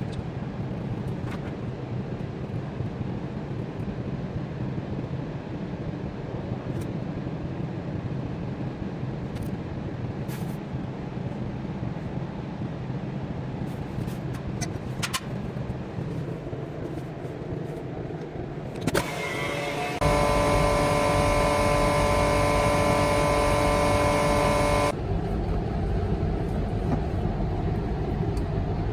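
Steady low machine hum with a few light clicks. About twenty seconds in, a small electric motor switches on with a click and runs with a loud steady whine of several pitches, then cuts off abruptly about five seconds later.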